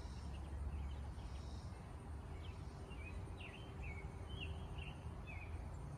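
Small birds chirping: a series of short, quick chirps from about two to five seconds in, over a steady low rumble.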